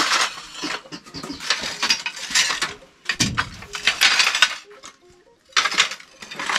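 Broken ceramic tile offcuts clinking and clattering against each other as they are picked up and moved, in four bursts, with a dull thump a little after three seconds.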